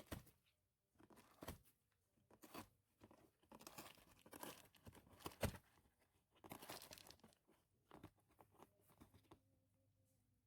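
A cat chewing and tearing at cardboard: faint, irregular crunches and rips in short clusters, stopping about a second before the end.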